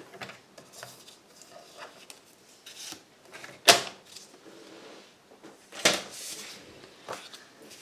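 A paper trimmer being handled and moved on a craft table: a sharp knock a little under four seconds in and another about two seconds later, with faint handling noises between.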